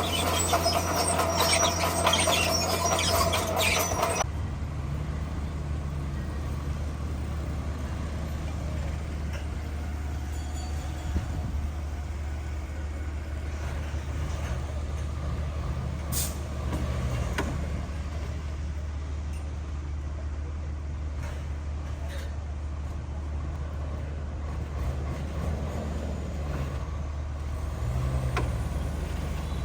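Bulldozer's diesel engine running steadily, with a loud harsh rattling noise for the first four seconds that then drops away. A few sharp clicks come later.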